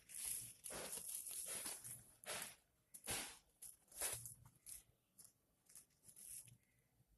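Towel packaging being handled and opened: a long stretch of rustling and crinkling for the first two and a half seconds, then several short separate crinkles.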